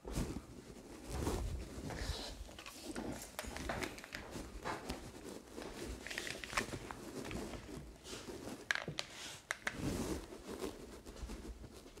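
Footsteps and handling noise: scattered knocks, taps and rustles as studio lighting gear is moved about.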